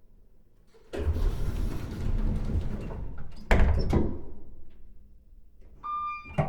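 Old apartment-building elevator doors rumbling as they slide, then stopping with two heavy clunks about halfway through. Near the end a short single-pitched chime rings, followed by a sharp click as the doors start moving again.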